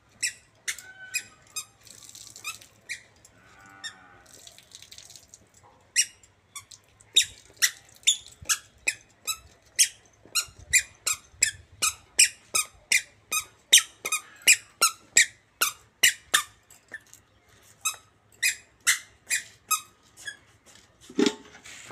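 Squeaky toddler shoes chirping with each step as a small child walks: a few scattered squeaks at first, then a steady run of about two squeaks a second from about six seconds in.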